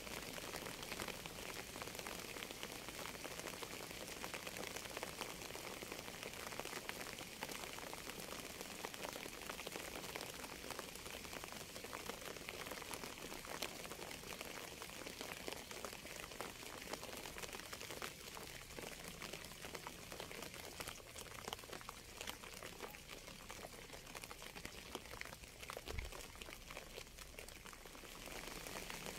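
Steady rain: a dense, even patter of many small drops, with one brief low thump near the end.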